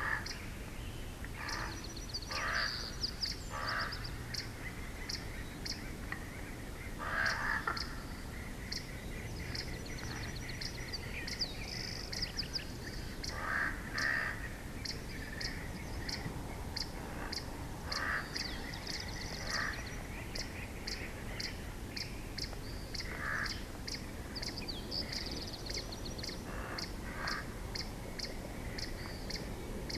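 Wild birds calling outdoors: short, lower calls every few seconds over a steady run of quick, high chirps, with a few high trills.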